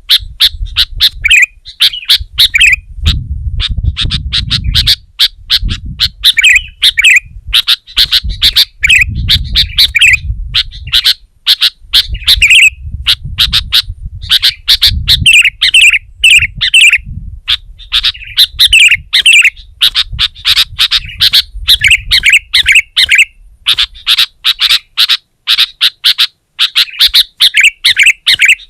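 Sooty-headed bulbul calling loudly and almost without pause, in rapid bursts of chirping, bubbling phrases. A low rumble comes and goes beneath the calls.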